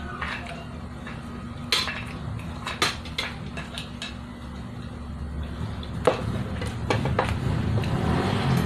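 Plates and spoons clinking and scraping on a table during a meal: scattered sharp clinks, over a steady low hum.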